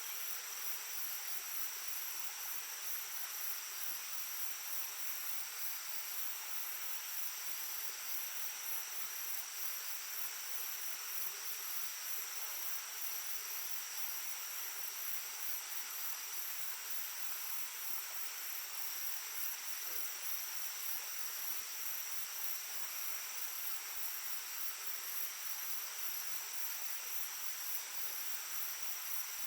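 Shallow stream babbling steadily over stones, with insects trilling in a continuous high, pulsing drone over it.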